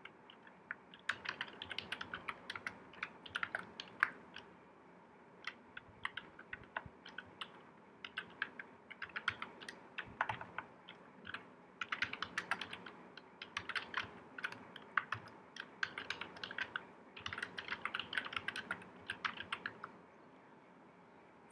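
Typing on a computer keyboard: quick runs of keystrokes broken by short pauses, which stop about a second and a half before the end.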